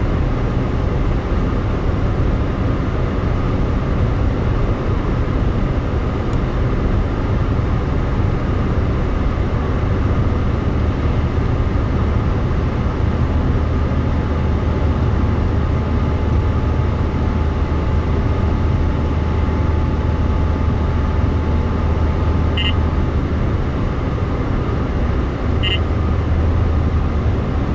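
Steady road and engine noise heard from inside a moving car at highway speed: a continuous low drone with tyre hiss. A few short, high beeps sound near the end.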